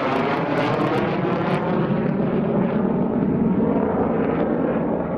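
Jet noise from a Lockheed Martin F-22 Raptor's twin Pratt & Whitney F119 turbofans as it passes low overhead. It crackles at first, then turns duller as the jet moves away.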